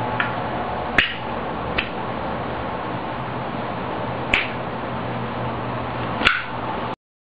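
Zippo lighter's metal lid clacking five times as it is flipped open and snapped shut, over a steady background hiss. The sound cuts off abruptly near the end.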